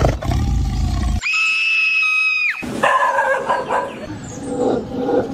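A dog whining and yelping in alarm: a low roar at the start gives way about a second in to a single high, steady whine that dips as it ends, followed by a run of shorter yelps and whimpers.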